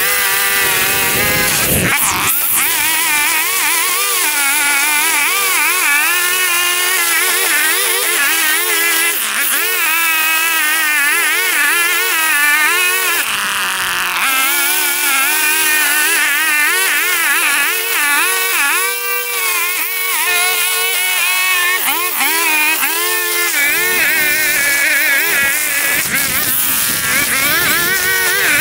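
Small gasoline engine of lawn equipment running steadily, its pitch wavering up and down all the while as the load changes in the grass.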